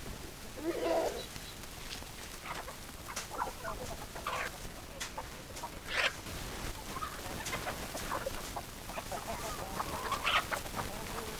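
Hens clucking: a string of short, irregular clucks.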